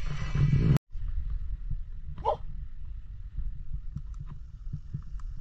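A dog gives one short whine about two seconds in, over a steady low rumble. The sound drops out briefly at a cut just under a second in, and a few faint clicks follow later.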